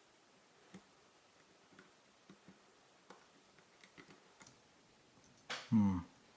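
Faint, irregular small clicks of a lock pick working the pins of a Mul-T-Lock MT5 pin-in-pin cylinder while it is being picked. A brief muttered voice comes near the end.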